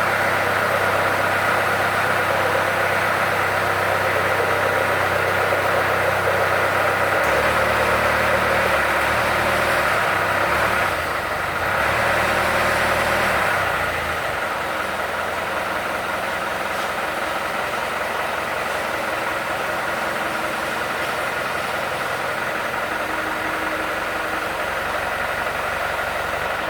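Engine of a Jacro 200 well-drilling machine running steadily during a test run. Its low hum shifts about a quarter of the way in and again around the middle, then settles a little quieter.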